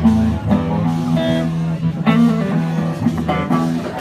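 Live band music with guitar playing over sustained low bass notes.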